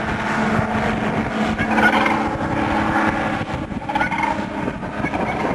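Ultralight airplane engine running steadily in flight, a continuous drone with a few short higher-pitched sounds over it about two and four seconds in.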